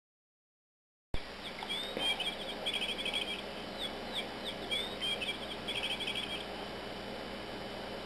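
Electronic chirping bird cat toy playing its recorded birdsong: a few quick falling chirps followed by a fast trill, the phrase heard twice.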